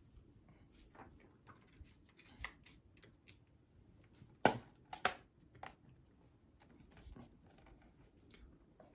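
Faint handling of a SteelBook disc case: scattered light clicks and taps, with two sharper clicks about half a second apart midway through.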